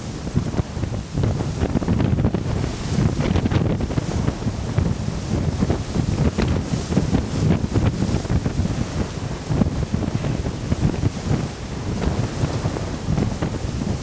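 Wind buffeting the camera microphone: a loud, low, rumbling noise that surges and drops in rapid, uneven gusts.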